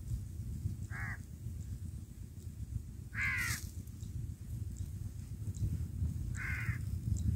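A crow cawing three times, a few seconds apart, the middle call the loudest and longest, over a steady low rumble of wind on the microphone.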